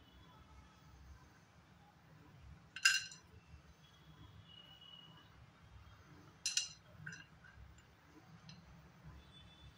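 Two sharp clinks of metal cookware, each with a brief ring, about three and a half seconds apart, the second followed by a smaller tick.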